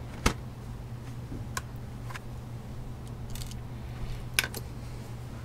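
Laptop keyboard keys clicking, about six irregular presses with the loudest just after the start, over a steady low hum.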